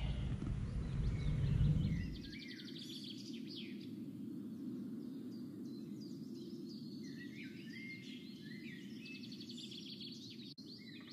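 Small birds chirping and trilling in repeated short phrases over a steady low hum. A heavy low rumble fills the first two seconds and stops abruptly.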